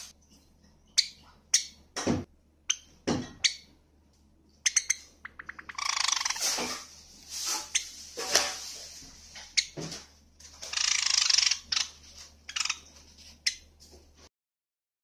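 White Java sparrow calling: short sharp chirps and clicks, a quick run of ticks about five seconds in, and longer warbling phrases. The sound stops abruptly near the end.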